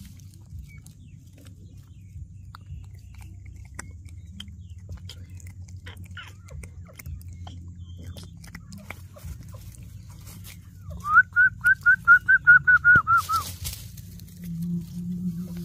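Small scattered clicks over a low steady hum. About two-thirds of the way in comes a quick, even run of about a dozen short high chirps, the loudest sound, followed by a brief rustling burst.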